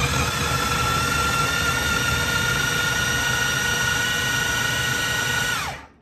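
Food processor motor running at a steady whine, chopping cooked pork roast into a coarse mash. Near the end it is switched off and the whine falls away as the blade spins down.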